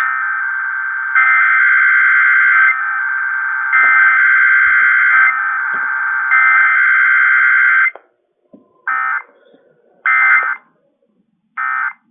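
Emergency Alert System SAME data bursts on a radio broadcast: three longer bursts of shrill digital tones that stand out from a steady tone, followed by three short end-of-message bursts about a second apart.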